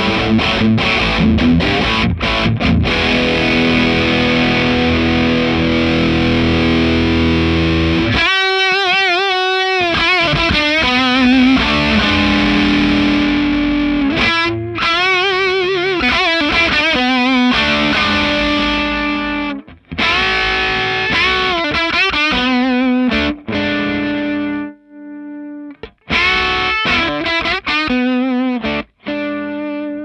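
Electric guitar played through a BadCat Lynx 50 valve amplifier with heavy distortion: dense rhythmic chords for about the first eight seconds, then lead lines with bent notes, vibrato and held notes, broken by a few brief gaps near the end.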